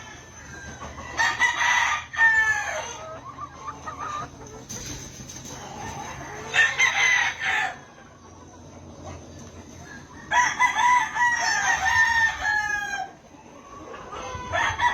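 Roosters crowing, three long crows: about a second in, midway, and a longer one about ten seconds in, with hens clucking between them.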